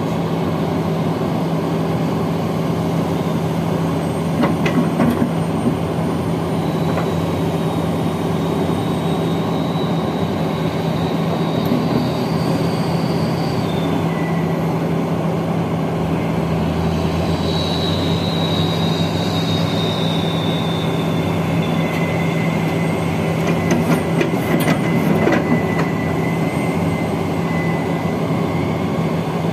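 Diesel engines of a SANY excavator and a tipped dump truck running steadily, with thin, high metal squeals that drift in pitch as the excavator bucket scrapes soil out of the raised steel dump bed. A few sharp metallic knocks come about five seconds in and again toward the end.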